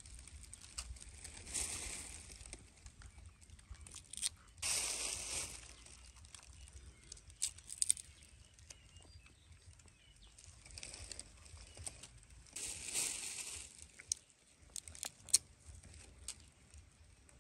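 Dry leaf litter rustling in several short bursts as the baby monkeys move about in it, with scattered sharp ticks of leaves and twigs.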